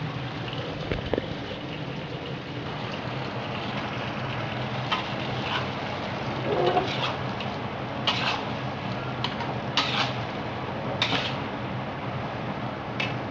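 Mutton and chopped tomatoes sizzling in hot oil in a karahi, a steady frying hiss, with a metal ladle scraping and knocking against the pan several times as it stirs.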